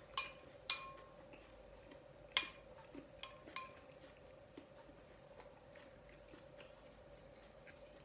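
Metal spoon clinking against a glass bowl of congee while eating: about five sharp, ringing clinks in the first four seconds, then only small faint ticks. A faint steady hum runs underneath.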